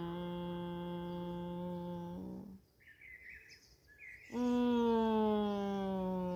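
A woman's voice holding a long, steady chanted tone as a yogic sound exercise, breaking off about two seconds in. After a pause of about two seconds a second long tone starts a little higher and slides slowly down in pitch.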